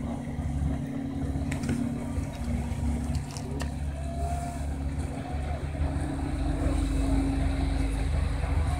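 Car ferry's engine running steadily as the loaded ferry moves off the dock, a low hum that grows a little louder about six seconds in.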